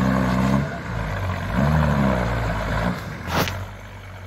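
Diesel engine of a Toyota pickup revving in two bursts as it pushes through deep mud and water, then easing off. A short sharp knock about three and a half seconds in.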